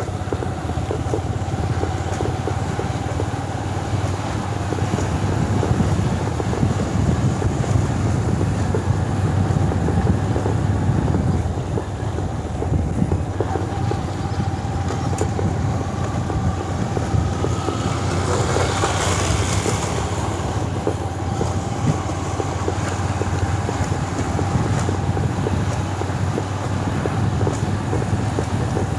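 Motorcycle engine running steadily while riding, with a constant drone and a steady whine; a brief rising whine and hiss swell up about eighteen seconds in.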